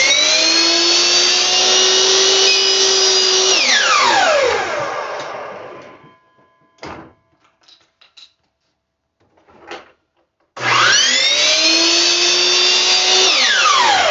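Electric power saw switched on twice: each time the motor spins up with a rising whine, runs steadily for about three seconds, then winds down. Between the two runs come a couple of short knocks of wood being handled.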